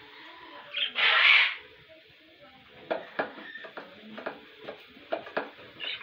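A short hiss of water spray about a second in, then a run of quick, short chirps from budgerigars.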